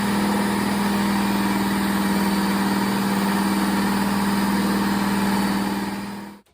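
Electric belt sharpening machine running steadily with a strong hum, then switched off near the end, cutting out within a fraction of a second.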